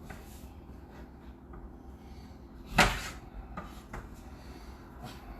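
Kitchen handling noise: one sharp clunk a little under three seconds in, followed by a few lighter clicks.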